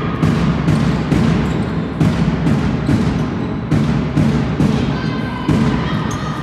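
Repeated deep thuds, irregular at about one to two a second.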